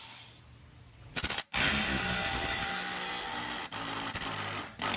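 A power wrench runs for about three seconds, working on the pinion nut of a Toyota 7.5-inch clamshell front differential. A short burst comes about a second in, and a sharp click near the end.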